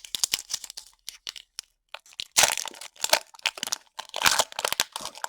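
Foil wrapper of a Pokémon booster pack being crinkled and torn open by hand: a run of irregular crackles and rips, the loudest about two and a half seconds in and again near four seconds.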